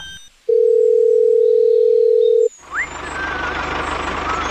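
A loud, steady electronic beep at one pitch held for about two seconds. A moment later a tractor engine sound effect starts running with a low, even chugging hum, with faint chirping whistles over it.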